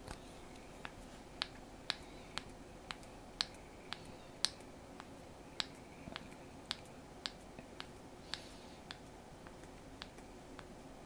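Steel No. 2 hand gripper being squeezed for reps: a sharp click each time the handles close, about two a second, a little softer and more spaced near the end.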